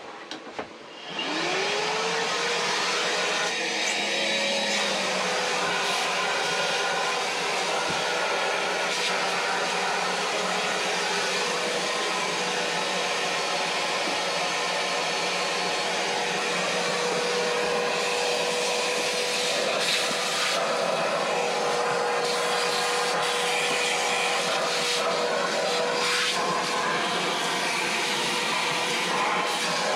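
An electric power tool starts up about a second in, its motor whine rising in pitch as it spins up, then runs steadily with a loud hissing noise.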